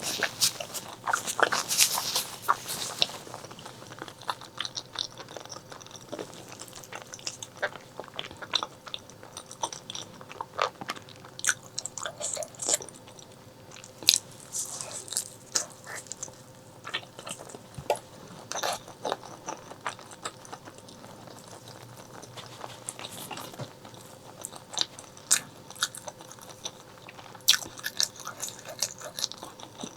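Close-up eating sounds of braised pork leg being chewed and bitten: irregular wet smacks, crackles and crunches of a mouth working on the meat and skin.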